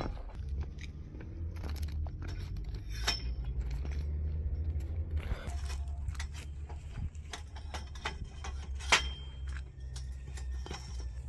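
Scattered light clinks and knocks, with a sharper click about nine seconds in, over a steady low rumble.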